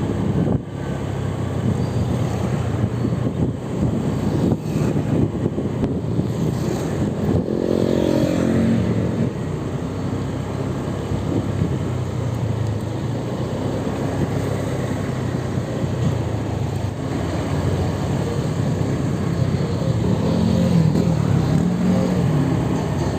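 Street traffic: steady road noise and engine hum of passing motor vehicles. One vehicle's engine rises and falls in pitch about eight seconds in, and another engine note comes up near the end.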